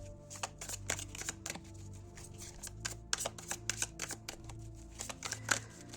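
Tarot cards being shuffled by hand: a run of quick card flicks and slaps, bunched more thickly about halfway through and near the end, over soft background music with low held tones.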